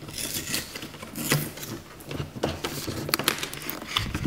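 Plastic toy packaging being opened and handled: a run of irregular crinkles, clicks and scrapes as a clear plastic storage case comes out of its box, with a dull thump near the end.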